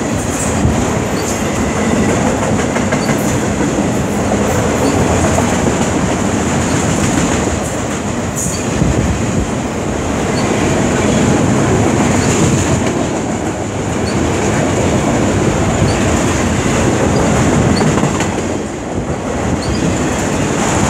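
Enclosed autorack freight cars rolling past close by: a steady rumble of steel wheels on rail, with a few clicks over rail joints and a steady high ring above it.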